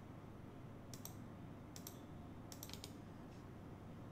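A few light, sharp clicks from a computer mouse and keyboard, mostly in quick pairs, about a second, two seconds and nearly three seconds in, over faint steady room noise.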